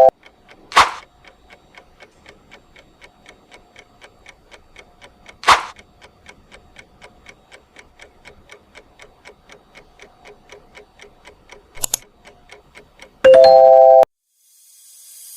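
Clock-ticking sound effect: steady ticks at about four a second, cut by two loud whooshes. A short loud chime near the end stops abruptly.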